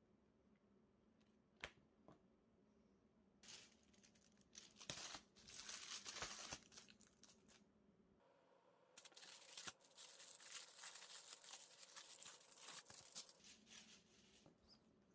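Clear plastic sleeve around a photobook crinkling and rustling as it is handled, in two stretches of several seconds each. Before that, two light taps.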